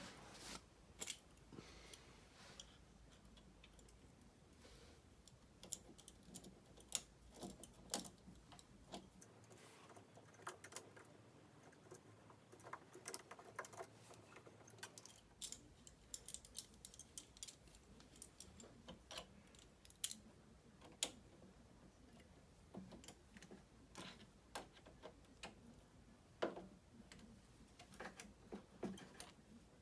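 Scattered light clicks and clinks of small carburetor parts and hand tools being handled as a Tecumseh carburetor is cleaned.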